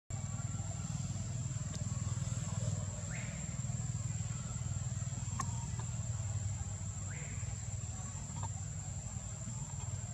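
Steady outdoor background: a continuous low rumble under a thin, steady high-pitched whine, with two short rising chirps about four seconds apart and a faint click between them.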